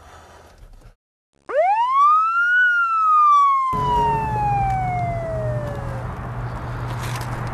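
Police siren giving a single wail: it rises sharply over about a second, then slowly falls away over the next three seconds. About halfway in, a steady low hum and outdoor noise start up beneath it.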